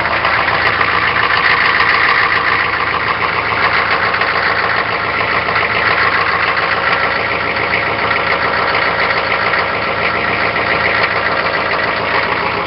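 GM 6.5-litre turbo-diesel V8 of a 3/4-ton K2500 Suburban idling steadily just after a hard cold start, with a loud diesel clatter heard at the tailpipe. The engine is still cold.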